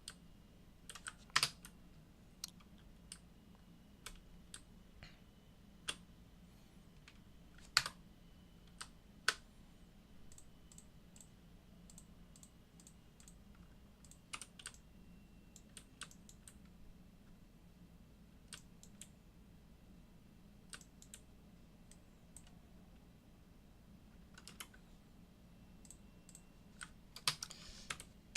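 Scattered keystrokes on a computer keyboard, single taps and short groups with pauses between, a denser cluster near the end, over a faint steady low hum.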